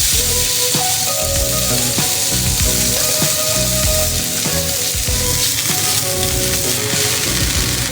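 Food frying in a hot pan, sizzling steadily, with background music playing.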